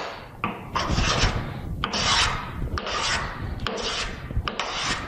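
Wooden-bodied hand plane taking repeated strokes along a board, about one stroke a second. Each stroke is a short rasping hiss of the blade slicing off a shaving, starting with a sharp click as the plane meets the wood.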